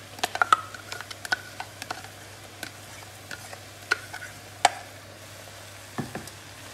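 Spatula scraping and knocking against a steel mixer-grinder jar as tomato paste is emptied out of it: a run of sharp, irregular taps and clicks, the loudest about half a second in and near the middle, over a faint steady hum.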